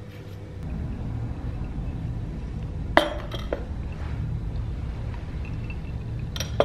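Crockery and cutlery clinking as a plate with a fork and spoon, and then a cup, are set down on a table. There is a sharp ringing clink about three seconds in, a lighter one just after, and another sharp clink near the end, over a steady low rumble.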